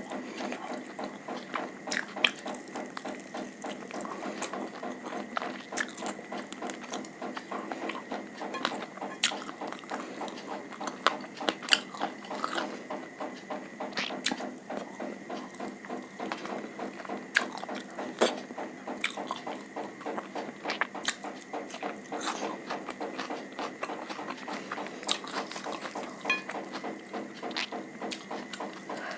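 Close-miked eating sounds: continuous chewing with many small wet clicks and crunches, a few sharper ones standing out.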